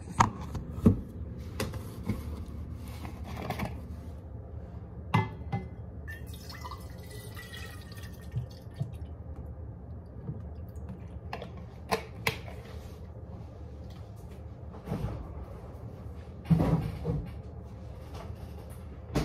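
Juice drink being poured from a plastic bottle into a tall water bottle, with knocks and clicks of the bottles and caps being handled and set down on a stone countertop, over a steady low hum.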